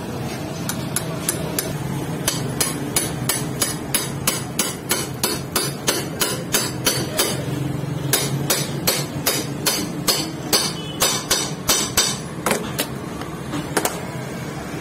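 Hammer driving a steel bushing into the clutch-lever pivot hole of a motorcycle clutch cover: a long run of sharp metal-on-metal blows, about two to three a second, that stops about a second before the end.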